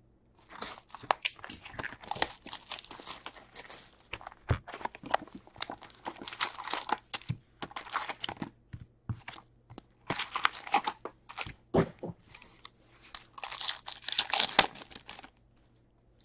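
A 2021-22 Upper Deck Series One hockey hobby box being opened and its foil card packs handled and torn open: repeated bursts of crinkling and tearing with sharp clicks, stopping about a second before the end.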